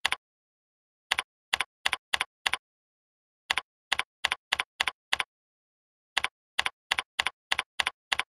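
Computer keyboard keystrokes: three short runs of typing, each a quick string of clicks, with dead silence between the runs.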